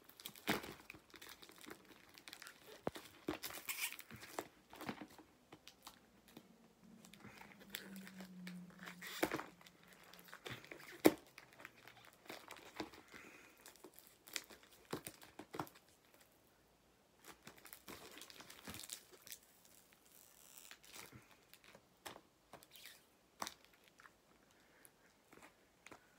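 Paper and tape packaging crumpled and torn by hand while a parcel is unwrapped: irregular rustles and crinkles, with a sharp crackle about eleven seconds in as the loudest.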